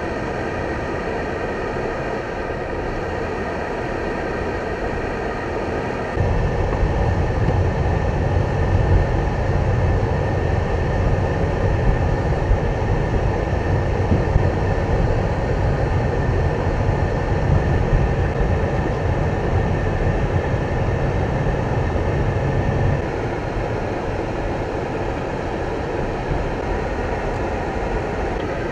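Steady vehicle and road noise from highway traffic. A deeper rumble comes in suddenly about six seconds in and drops away abruptly near the end.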